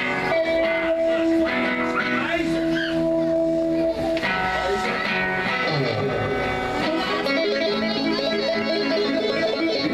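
Live band playing, led by electric guitars holding sustained notes with some bent, sliding notes, over bass.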